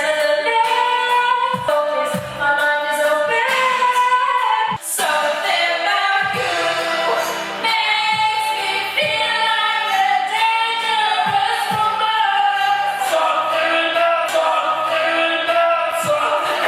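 Several voices singing a pop song along with a karaoke backing track.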